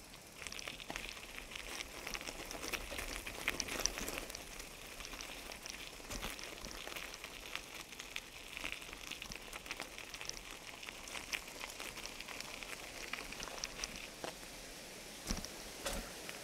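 Bicycle tyres rolling over a gravel road, a steady crackle of small stones under the wheels.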